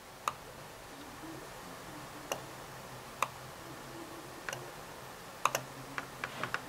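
Sparse, irregular clicks from a computer keyboard and mouse in use, with a quick cluster of clicks near the end, over a faint low hum.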